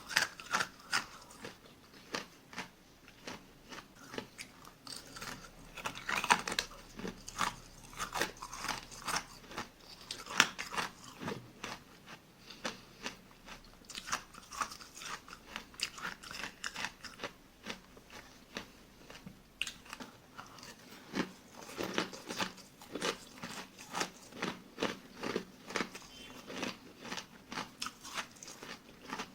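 Close-miked mouth chewing and crunching of small granules of tartary buckwheat ice. Quick, irregular bursts of crisp crunches come in clusters, with short pauses between bites.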